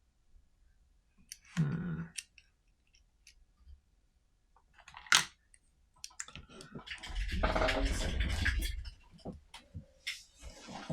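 Clicks, knocks and scraping of small metal clamp parts and hand tools being worked during disassembly. One sharp click comes about five seconds in, and a longer stretch of rubbing and scraping follows from about seven to nine seconds.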